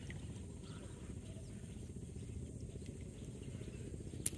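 Quiet handling of a fish being freed from a monofilament gill net in shallow water: faint small water and net noises over a steady low rumble, with one sharp click about four seconds in.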